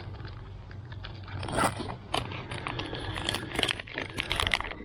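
Packets of soft plastic vibrotail lures being rummaged through by hand: crinkling plastic, scraping and irregular small clicks, busier near the end.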